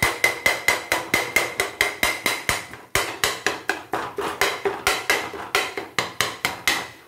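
Rim of a steel tumbler rapidly chopping kothu parotta on a tawa: a fast, even clatter of metal-on-metal strikes, about six a second, with a light ringing tone. There is a short break about three seconds in, and the chopping stops near the end.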